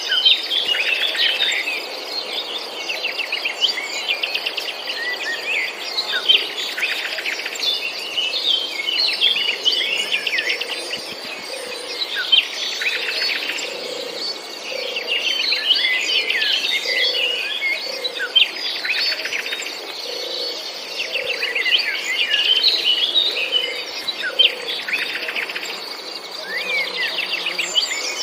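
Several garden birds chirping and singing, with rapid trills and quick chirps that come in clusters every second or two. Underneath is a steady high insect-like buzz, and soft low notes repeat about once a second through the middle.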